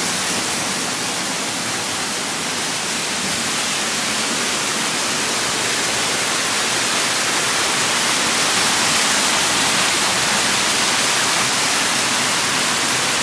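Small waterfall on a stream: a steady rush of falling water that swells slightly partway through.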